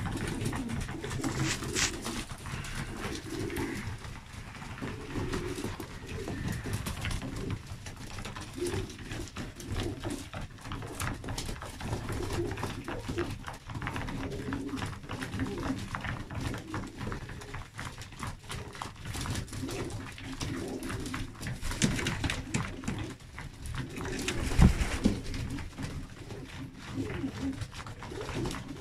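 A flock of South German Monk pigeons cooing while feeding, with many quick clicks of beaks pecking grain against a wooden trough. One louder thump comes late on.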